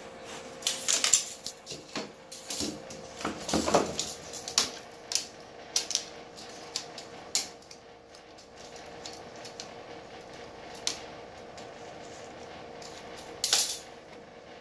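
Metal clinks and clatters as the aluminum angle frame and grizzly bars of a sheet-metal highbanker header box are handled and knocked together, coming in irregular clusters with the loudest about a second in and near the end. A faint steady hum runs underneath.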